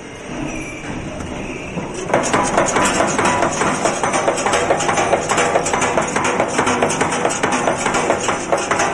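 High-speed wire nail making machine running: a quieter machine rumble that gives way about two seconds in to a much louder, fast and even metallic clatter of its rapid strokes.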